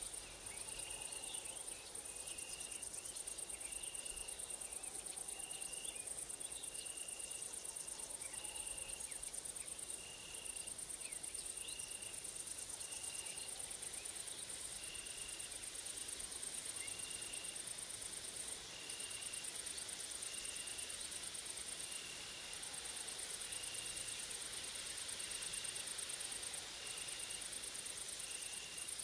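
Grasshoppers and crickets stridulating: a high, continuous, finely pulsing trill that stops for a moment every few seconds, over a lower short chirp repeating about once a second.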